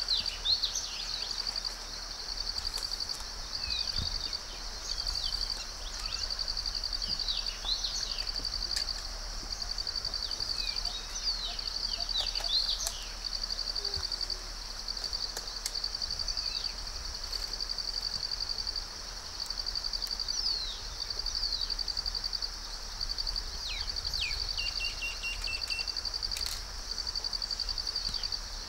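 Natural ambience: insects trilling high and steadily in pulsing trains about a second long, with short gaps between them. Scattered quick bird chirps and calls sound over them, and a low steady rumble lies underneath.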